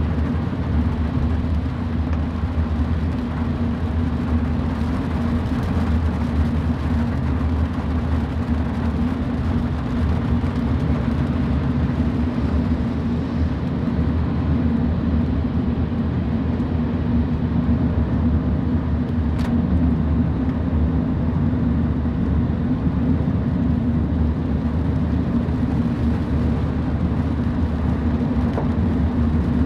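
Car driving on rain-wet city streets, heard from inside: a steady low rumble of engine and tyres with an even hiss of road noise.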